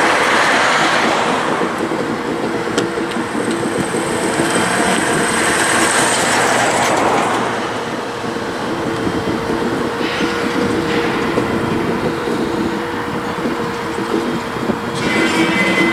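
Pacific National NR-class locomotives rolling slowly over curved siding track: steady wheel-and-rail noise with a few clicks, and wheel flanges squealing high-pitched a few seconds in and again near the end.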